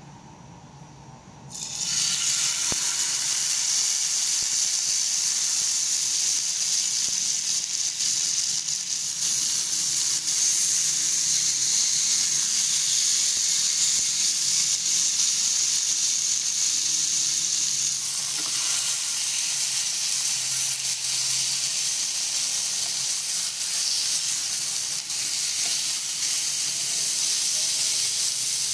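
Marinated lamb frying in hot oil in a small metal pan: a steady, loud sizzle that starts about two seconds in as the meat goes into the oil.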